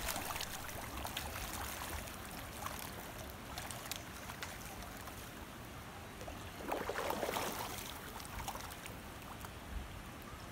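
Water flowing and splashing in a trout hatchery raceway, with scattered small splashes and a louder burst of splashing about seven seconds in, as trout are fed.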